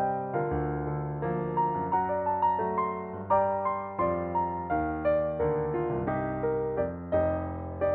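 Soft background music on piano or electric piano: a slow melody of separate notes, each struck and left to ring over sustained low bass notes.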